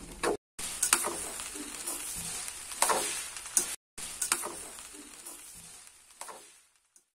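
Fried rice sizzling in a metal pan as it is stirred, with a steady hiss and several sharp scrapes of the stirring utensil against the pan. The sound cuts out briefly twice and fades away near the end.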